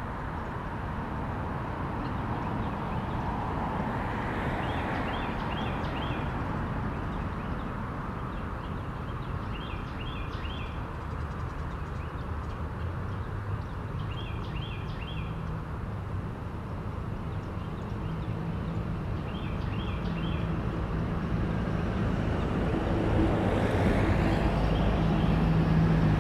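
Steady road-traffic rumble that grows louder near the end as a vehicle comes closer. A bird repeats a short run of three or four quick high notes about every four to five seconds.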